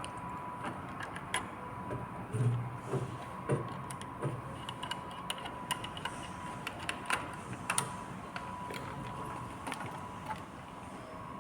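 Irregular small clicks and knocks of screws, metal brackets and a screwdriver as the display panel's mounting brackets are fastened, with a dull thump about two and a half seconds in. A faint steady high tone runs underneath.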